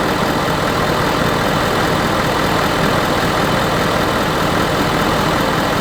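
Ford F-250's 6.7-litre Power Stroke V8 turbo-diesel running steadily at idle, just after an oil change.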